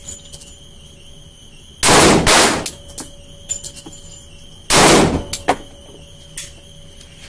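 Three pistol shots from a Glock 30S in .45 ACP: two about half a second apart about two seconds in, and a third near five seconds, with lighter sharp cracks between.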